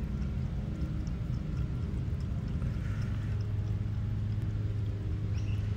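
Cat lapping water inside a plastic watering can, faint small ticks over a steady low rumble.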